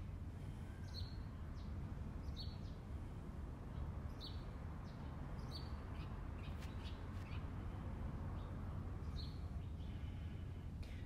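Birds chirping: short high calls repeated every second or so, over a steady low background rumble.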